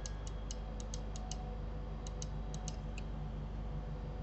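Computer mouse clicking: about a dozen light, short clicks in two irregular runs, over a steady low hum.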